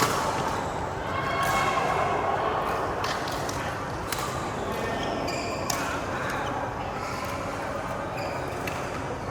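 Badminton rackets striking the shuttlecock in a rally: a few sharp hits spaced a second or two apart, with people talking in the background.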